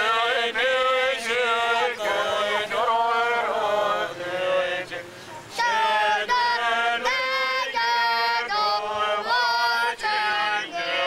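Crowd of protesters chanting in unison, phrase after phrase, with a brief pause about five seconds in.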